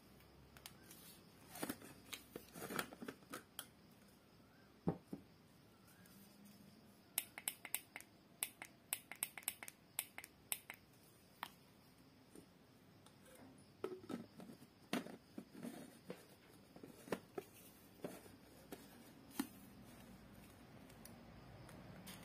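Quiet, scattered clicks and taps of plastic as a portable USB blender bottle is handled, its clear cup unscrewed from the blade base and fitted back on; the blender motor is not running.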